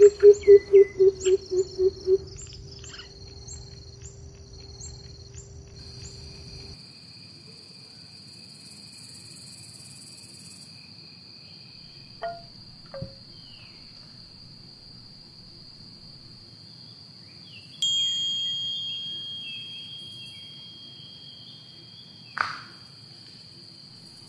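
Sound-effect nature ambience of crickets and insects chirping steadily, with a few bird chirps. In the first two seconds a quick run of about ten loud low pulsing notes, and about 18 seconds in a bell-like chime rings out and fades over a couple of seconds.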